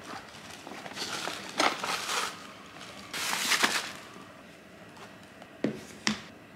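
Crinkly rustling of a black reusable plastic tote bag being rummaged through, in two bursts, as a plastic food container and a fork are taken out of it. Two sharp clicks follow near the end.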